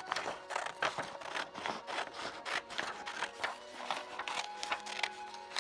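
Scissors cutting a sheet of paper along a folded diagonal: a quick, steady run of snips, about two or three a second.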